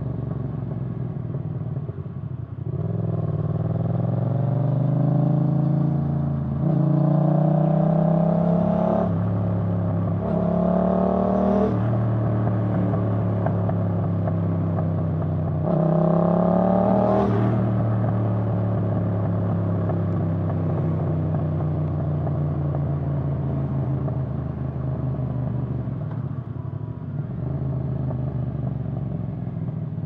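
2019 Yamaha MT-07's parallel-twin through a Roadsitalia Doublefire titanium exhaust, pulling up through the gears. The engine pitch climbs and drops back at each upshift, three times in the first twelve seconds. It cruises, makes one more short pull about sixteen seconds in, then settles into a steady cruise.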